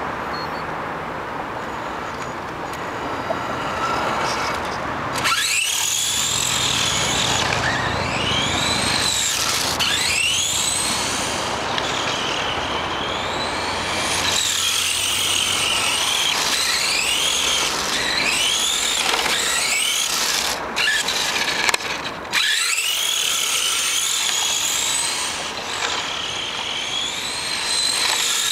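HPI E10 electric RC car's motor and gears whining, the pitch sweeping up and down again and again as the throttle is worked, starting about five seconds in after a steady hiss.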